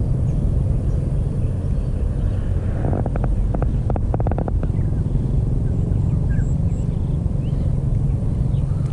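Wind buffeting the camera microphone outdoors, a steady low rumble, with a short run of quick clicks about three seconds in.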